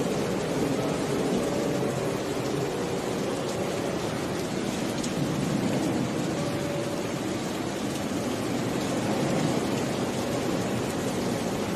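Steady rain, an even hiss with no breaks or sudden claps.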